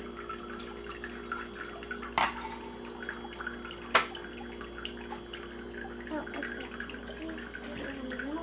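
Battery-powered toy kitchen sink faucet running a thin stream of water into a small steel pot, with the steady hum of its recirculating pump. Two sharp clinks of small metal toy cookware, about two seconds in and again, louder, about four seconds in.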